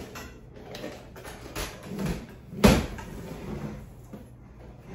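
Knocks and light clatter of a whiteboard easel's board and tubular leg being handled during assembly, with one sharp knock about two and a half seconds in.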